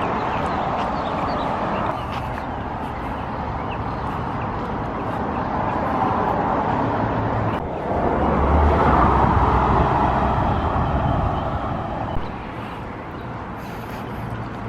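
Road traffic: a steady wash of passing vehicles, with one louder vehicle passing with a low rumble about eight seconds in before the noise eases.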